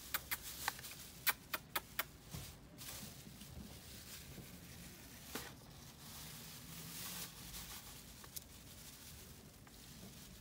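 Thin plastic bag crinkling and rustling as food is shaken out of it into a takeaway tray: a quick run of sharp crackles in the first two seconds, then softer rustling.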